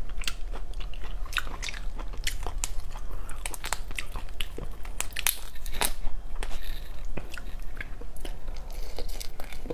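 Cooked mantis shrimp shells being cracked, peeled and bitten, with chewing: a run of sharp, irregular crackles and crunches.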